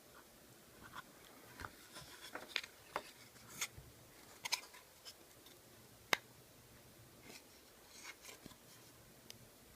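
Light, irregular clicks, taps and scrapes of small hand work, with one sharper tap about six seconds in.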